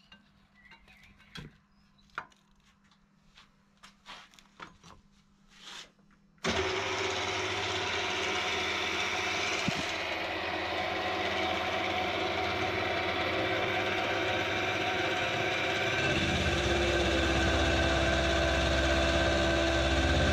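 A few light knocks and scrapes as swarf is brushed off the work, then about six seconds in a milling machine's spindle motor starts abruptly and runs steadily with a hum and whine. Near the end a deeper, louder rumble joins as the end mill cuts a notch in steel box-section tube.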